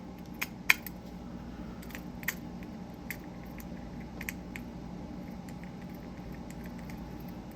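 A few sharp, scattered clicks and taps of small metal fidget-toy parts being handled and fitted together, over a steady low hum.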